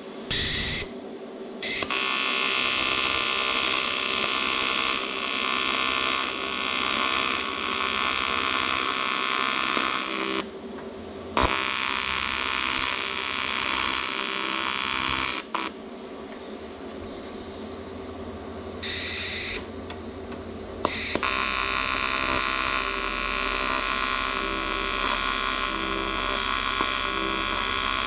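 AC TIG welding arc on aluminum, buzzing steadily in several runs: a long one of about eight seconds, one of about four, a brief one, and a final run of about seven seconds. Each run starts and stops abruptly, with short pauses between them.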